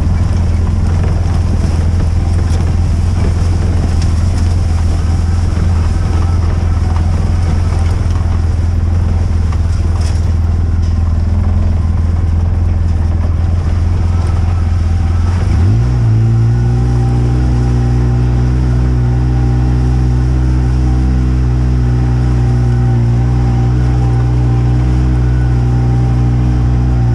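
A vehicle engine running steadily with a low hum. A little past halfway its pitch rises and then holds steady at the higher pitch.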